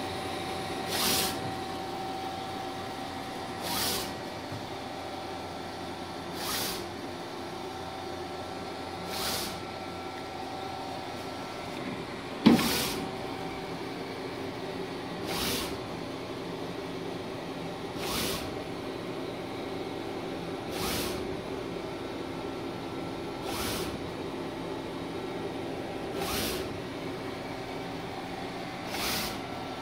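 A Mimaki 3042 HG UV-LED flatbed printer printing: a steady running hum with a short swish about every three seconds as the print carriage sweeps across. A single sharp click comes about halfway through.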